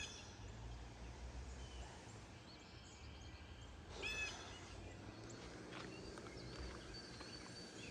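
Faint killdeer-like calls from a northern mockingbird mimicking a killdeer: one right at the start and a louder one about four seconds in, with a few faint high chirps later. The listener judges it not a real killdeer but a mockingbird.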